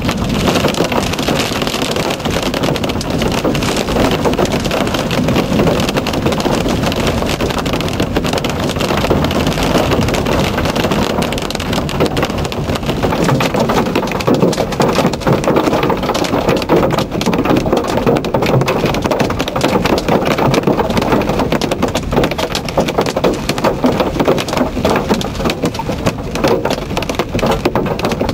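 Heavy rain and hail pelting a vehicle's roof and windshield during a severe thunderstorm, heard from inside the car: a loud, steady, dense patter of countless small impacts.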